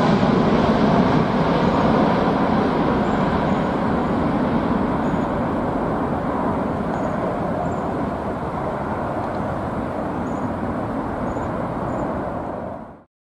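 Four Rolls-Royce Trent 900 turbofans of a departing Emirates Airbus A380-842 at climb power, a broad jet roar that slowly fades as the airliner climbs away, cut off abruptly near the end.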